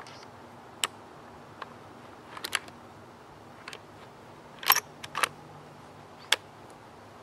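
A scoped hunting rifle being handled: a scattered series of sharp clicks and small knocks, the loudest a close double click about halfway through.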